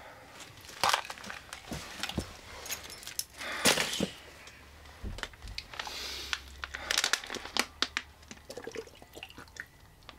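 Thin plastic water bottle crinkling and crackling as it is handled in gloved hands, in irregular clusters of sharp crackles.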